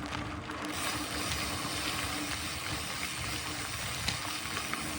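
Mountain bike rolling along a dirt trail: steady tyre and chain noise with the fine, fast clicking of the rear freehub ratchet.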